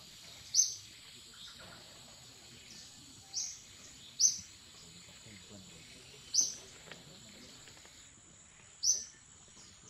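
Steady high-pitched insect drone, with five short, loud, high chirps a few seconds apart.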